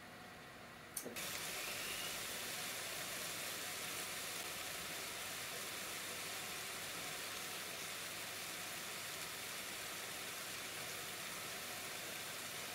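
Steady rain, a dense even hiss that starts abruptly about a second in with a click.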